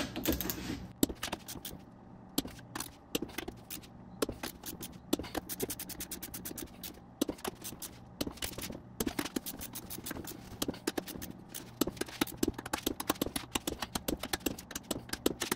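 Ratchet head of a torque wrench clicking in quick runs with short pauses, as the crown-wheel bolts on a differential carrier are tightened to 46 foot-pounds.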